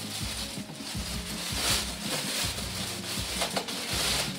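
Clear plastic packaging bag crinkling and rustling as it is pulled off a vacuum cleaner body, loudest in two swells, about one and a half seconds in and near the end, over music playing underneath.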